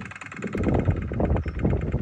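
Small steam engine of a restored 1950s C.K. tin toy steam boat running with a rapid, even puffing. From about half a second in, low rumbling gusts of wind on the microphone are the loudest part.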